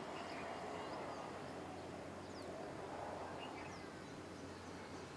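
Faint background noise with a steady low hum and a few short, faint high chirps from birds.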